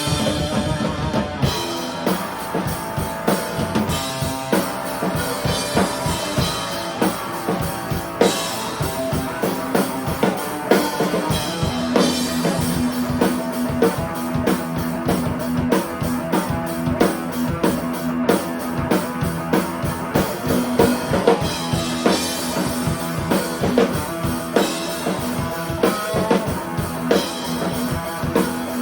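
A rock band playing live: drum kit with kick drum and cymbals, electric guitar and bass holding a steady groove.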